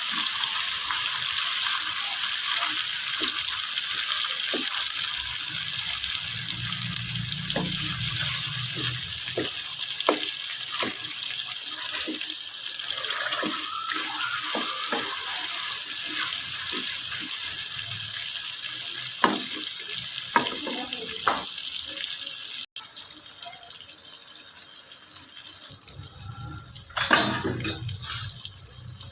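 Chicken frying in hot oil: a steady sizzle with scattered crackles and pops. It drops away suddenly about 23 seconds in, and there is a brief louder clatter near the end.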